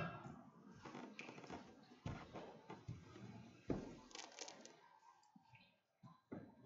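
Faint handling noise: a sharp click at the start, then a few scattered knocks with light rustling in between, as objects are picked up and set down.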